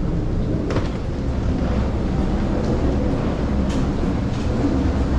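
A steady low mechanical rumble, with a couple of faint clicks about a second in and again near the end.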